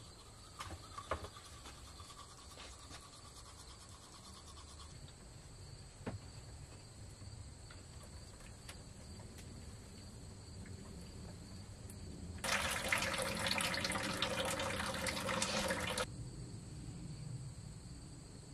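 Faint toothbrush scrubbing, then about twelve seconds in water runs steadily for about three and a half seconds and stops abruptly.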